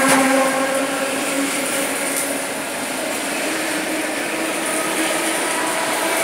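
Electric commuter train (elektrichka) cars passing close by the platform at speed: a steady loud rush of wheels and air with a continuous humming whine mixed in.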